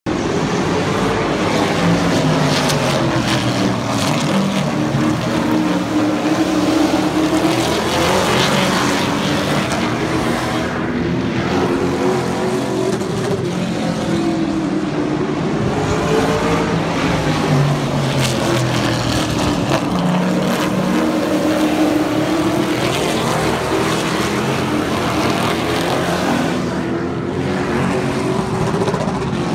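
Racing engines of super trucks on track in practice, running continuously at full volume. The engine note repeatedly climbs and then falls every several seconds as the trucks circle the oval, with more than one engine heard at once.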